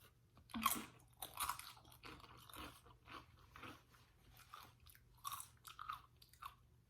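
Close-miked eating: a person biting and chewing crunchy food, with sharp crunches about half a second and a second and a half in, then irregular softer chewing crunches.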